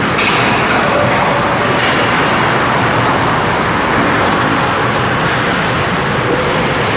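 Ice hockey rink ambience during play: a steady rushing noise, with a couple of faint sharp clacks of sticks or puck about two and five seconds in.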